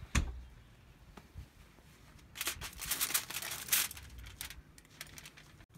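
Aluminium foil over a plate crinkling as the plate is picked up and handled, for about a second and a half around the middle, after a single knock near the start.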